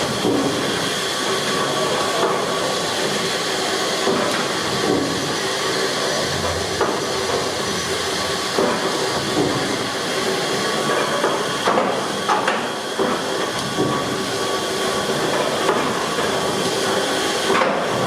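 Fowler steam ploughing engine hissing steam steadily, with scattered light mechanical knocks.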